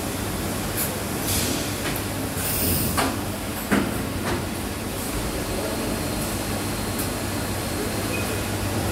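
Automated assembly machine with SCARA robot arms and pneumatic fixtures running: a steady mechanical hum, with short hisses of compressed air, the loudest about two and a half seconds in, and two sharp clunks just after.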